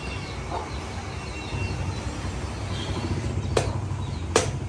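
Two sharp chops of a butcher's knife into mutton near the end, over a steady low hum and faint chirping of small birds.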